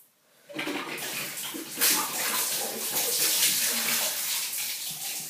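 Bucket of ice-cold water poured over a person's head and splashing down onto a shower floor. The pour starts about half a second in and grows heavier after about two seconds.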